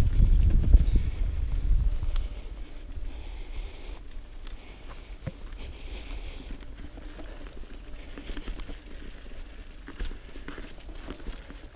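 Mountain bike rolling over a dirt forest trail: tyre noise on dirt and dry leaves with light rattles and knocks from the bike over bumps. A heavy wind rumble on the microphone for about the first two seconds, then the ride goes quieter.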